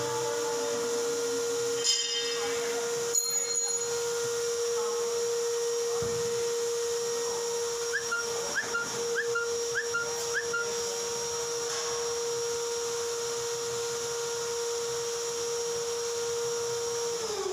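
Electric motor running with a steady whine, switched off near the end so that its pitch slides down as it winds down. A couple of knocks and a few short squeaks from work on the engine come over it.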